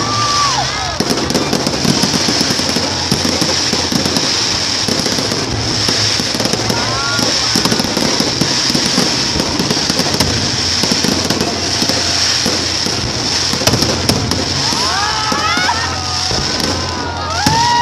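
Aerial fireworks going off in a dense, continuous run of bangs and crackles.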